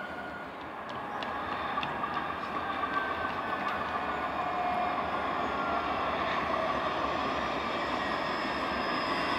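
A Škoda ForCity tram approaching on its rails. Its running noise grows steadily louder, with a thin whine over the rushing and a few light clicks in the first couple of seconds.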